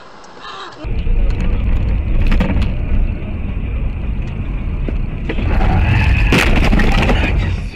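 Dashcam audio from inside a moving car: steady low engine and road rumble, growing louder about five seconds in as a car cuts across close in front, with a sharp knock in the loud stretch.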